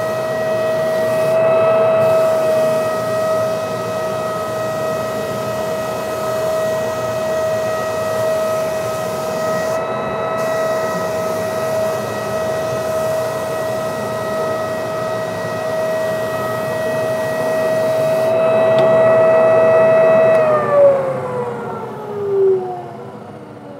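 American Sanders Legend belt floor sander running on hardwood: a steady high motor whine over a rough sanding hiss. About twenty seconds in, the whine falls steadily in pitch as the machine winds down.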